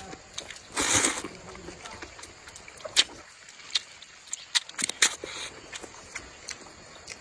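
Rice noodles slurped in one loud rush about a second in, then chewing with scattered sharp mouth clicks and smacks.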